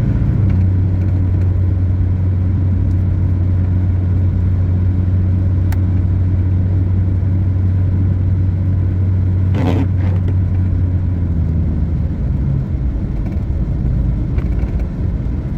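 A vehicle driving on a snowy road, heard from inside: a steady low engine and road drone, easing a little about twelve seconds in. There is one short, brief noise near the ten-second mark.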